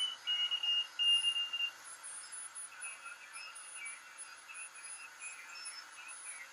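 Regenerative shortwave receiver's audio as the tuning dial is turned: a strong, slightly falling whistle in the first second and a half, then fainter broken whistles over steady hiss, the heterodyne tones of signals beating against the receiver's oscillating detector.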